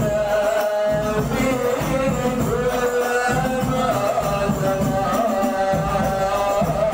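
A group of men singing a sholawat, a devotional Islamic song praising the Prophet, in a slow melody with long held notes, with hand-percussion accompaniment.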